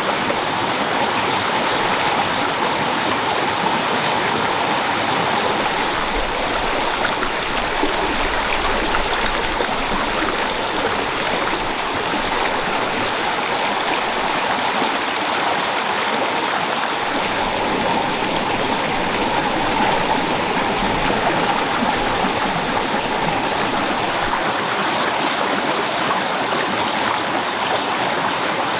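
Shallow rocky stream rushing and splashing over stones, a steady noise of fast-flowing water.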